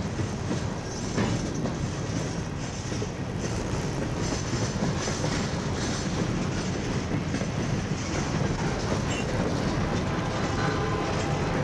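CSX freight train's cars rolling steadily past, steel wheels clicking over the rail joints.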